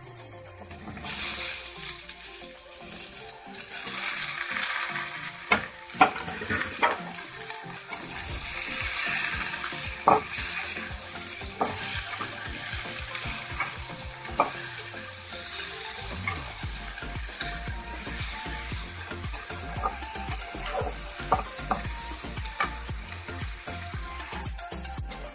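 Chopped ridge gourd, potato and tomato hitting hot oil in a metal kadai, sizzling loudly from about a second in. They keep frying while a metal spatula stirs and scrapes them round the pan, with scattered sharp clinks against the metal.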